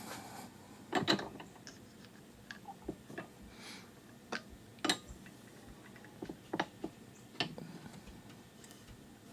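Scattered light clicks and knocks, about ten in all, some in quick pairs, as small metal parts and hand tools are handled during wiper linkage work.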